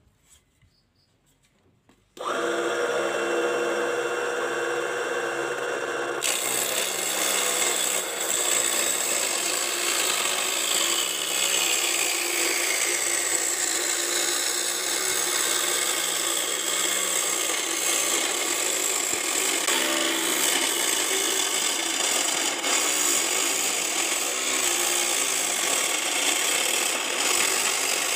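Homemade mini wood-cutting saw switching on about two seconds in with a steady motor whine, then a few seconds later its blade cutting into wood, a loud continuous rasping that runs on.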